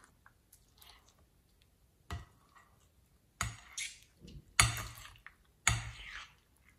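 Hands squeezing and stretching soft, wet slime in a glass bowl: a handful of separate wet squelches, the loudest about two-thirds through.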